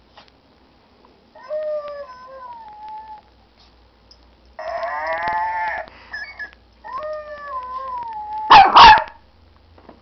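Noise-making toy ball for dogs playing recorded animal sounds: a long howl-like cry falling in pitch, a wavering call, a second falling howl, then two loud sharp barks near the end.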